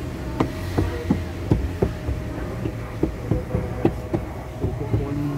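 Irregular sharp clicks and taps of plastic interior trim being pressed back into place along the headliner edge as a dashcam wire is tucked in, about a dozen in all, over a steady low hum.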